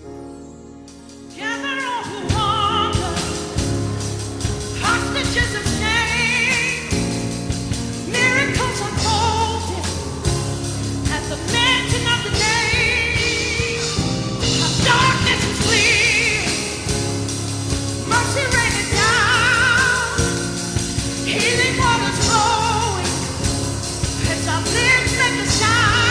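Live worship band music: a soft opening passage swells into the full band about a second and a half in. A singer holds and runs wavering notes with vibrato over it.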